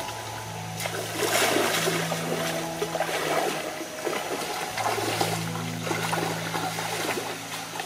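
Feet wading through a shallow stream, splashing with each step, starting about a second in, over steady background music.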